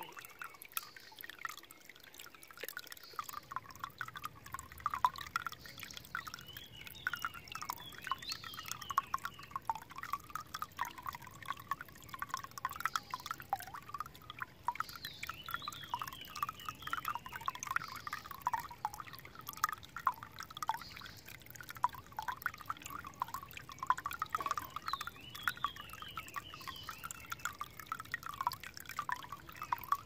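A thin stream of water pouring off a rusty metal ledge into a shallow pool, a continuous patter of small splashes and trickling.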